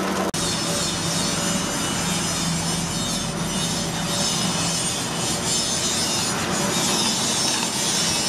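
Bench drill press running, its twist bit cutting a hole through a spring-steel blade: a steady motor hum under the continuous scraping hiss of the bit in the steel. There is a brief break just after the start.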